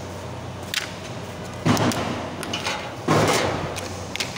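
Two loud knocks about a second and a half apart, each dying away quickly, with a light click before them and a couple of light clicks near the end. They come from hard plastic and metal hybrid-battery-pack parts (bus-bar covers and brackets) being handled and set down.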